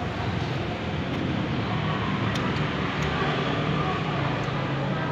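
Steady road traffic noise, a continuous rumble with no distinct events.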